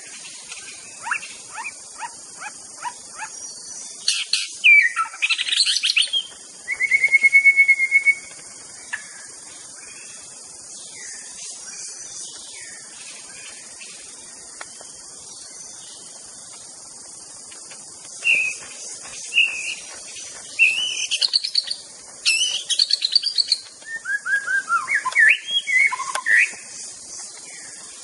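White-rumped shama singing in varied phrases: quick clicking notes, then loud whistles and a fast trill about seven seconds in; after a long pause, another run of whistled and warbled phrases in the second half. A steady high-pitched hiss runs underneath.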